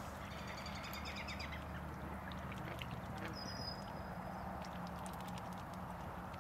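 Steady outdoor background noise with small birds calling: a quick series of high chirps about a second in and a thin high whistle midway, with faint scattered clicks.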